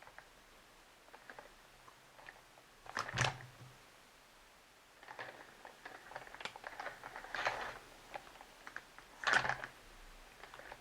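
Close handling of a Play-Doh playset: small plastic clicks and soft squishing and rustling, with louder bursts about three seconds in, through the middle, and near the end.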